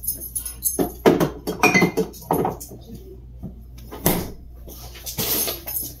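Clinks and knocks of bottles and jars being handled at an open refrigerator, with a louder knock about four seconds in, over a faint steady low hum.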